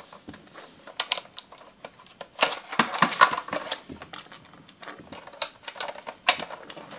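Small Playmobil plastic hubcaps clicking and clattering as they are picked up off a hard surface and pressed onto a toy pickup truck's wheels. The clicks are irregular, with a cluster of louder ones around the middle.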